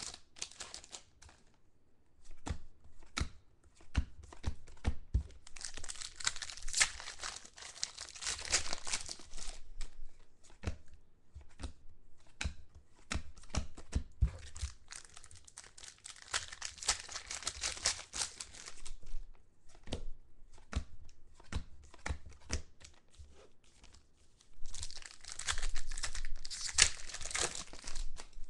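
Football trading card pack wrappers being torn open and crinkled in three long stretches, with sharp clicks and taps of cards and packs being handled in between.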